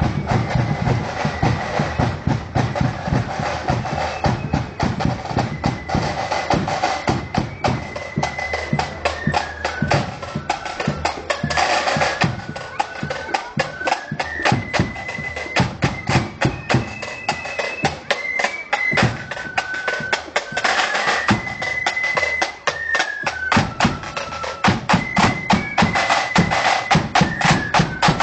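Marching band playing a tune: side drums and bass drum beating a brisk march under a high melody line. The band grows louder near the end as it comes closer.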